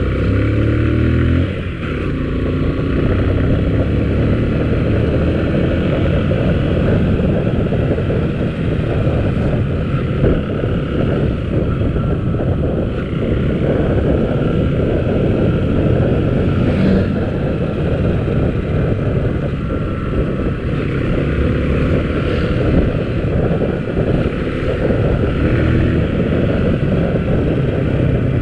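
Motorcycle engine running while riding, under a steady rush of wind and road noise; the engine note falls and briefly dips about a second and a half in.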